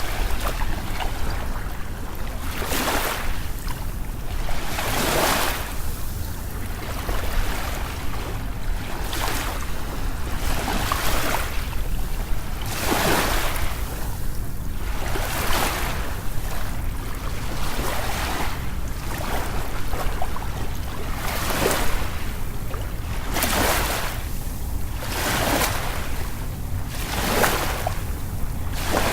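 Ocean waves washing in, each wave a rushing surge about every two seconds over a steady low rumble of surf.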